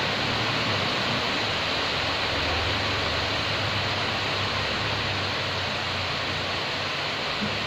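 Steady hiss of heavy rain, unbroken throughout.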